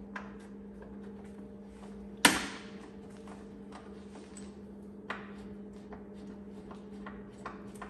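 A sharp knock about two seconds in, a softer knock a few seconds later and scattered light clicks as an enclosure door panel and its hardware are fitted loosely onto a side-by-side's door, over a steady low hum.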